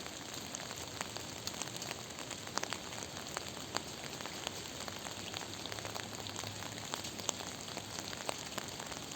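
Steady rain falling, an even hiss with many sharp individual drop ticks scattered through it.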